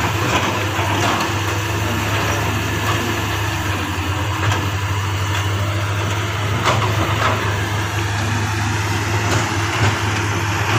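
Diesel engines of hydraulic excavators running steadily at the worksite, with a few short knocks.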